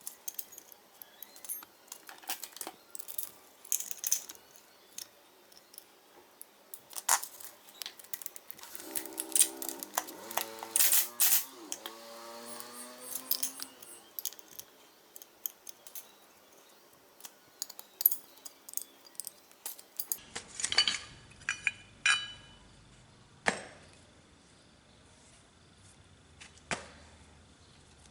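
Metal hand tools and bolts clinking and clicking in irregular knocks during motorcycle engine-mount work, with a squeak lasting a few seconds near the middle.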